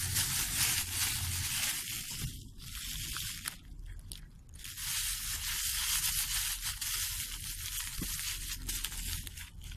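Plastic bags crinkling and rustling as they are crumpled and stuffed into a paper pocket covered in clear tape, with a short lull about four seconds in.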